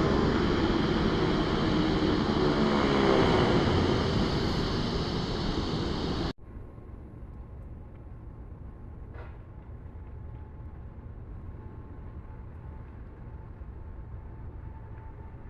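Airliner passing close by: loud engine noise with sweeping, shifting tones, cut off suddenly about six seconds in. After the cut, a much quieter steady low rumble with a faint thin whine.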